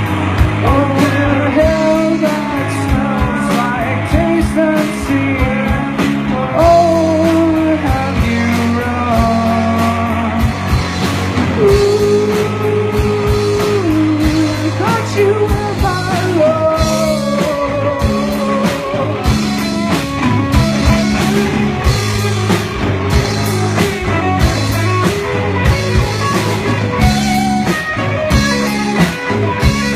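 Rock band playing a passage without lyrics: a melodic lead line that glides and holds notes over steady bass and drums.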